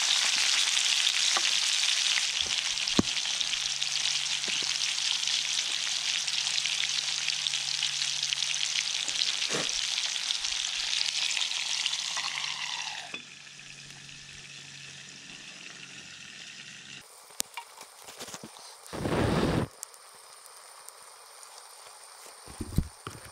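Steak searing loudly in a cast iron skillet, a steady hiss and sizzle that drops off suddenly a little past halfway. After that come quieter, scattered sharp crackles from the twig fire in the stove, and a short loud burst of noise near the end.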